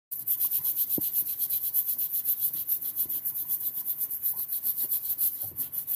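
A stiff brush scrubbing a wet black shoe in a sink, in fast back-and-forth strokes at about seven a second.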